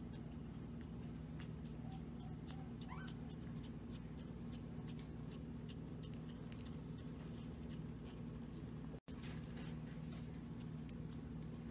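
Newborn Maltese puppy giving one faint short squeak about three seconds in, amid small clicks and rustles of its fur being handled, over a steady low hum.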